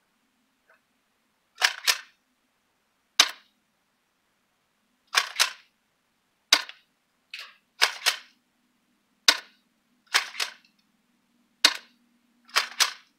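Spring-powered pump-action airsoft shotgun, a Mossberg Chainsaw 500 replica, being pumped and fired again and again: a string of sharp clacks about a second apart, many coming in quick pairs.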